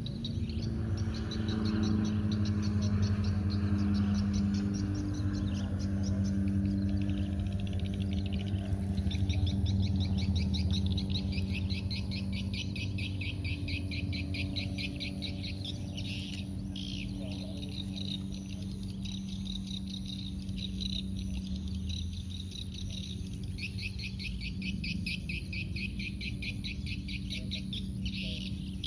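Rapid, high chirping trills of insects in long repeated stretches, starting about a third of the way in. Under them runs a steady low motor hum, loudest in the first ten seconds or so.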